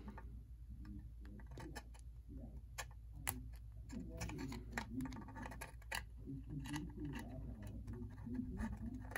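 Small screwdriver prying and scraping at the stubborn brush plate of a Tyco Power Torque model-train motor, held by plastic clips: faint, irregular clicks and small scrapes, coming thicker after about four seconds.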